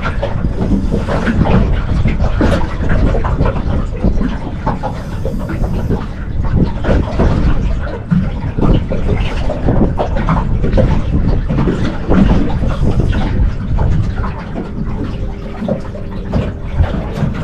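Wind buffeting the microphone on a small open fishing boat, over a steady low rumble with irregular knocks and rattles from the boat.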